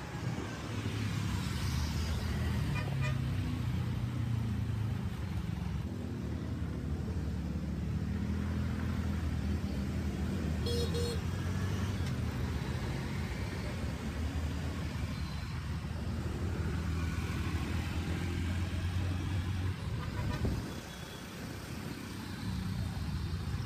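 City road traffic: a vehicle engine running with a steady low rumble, and a brief horn toot about halfway through.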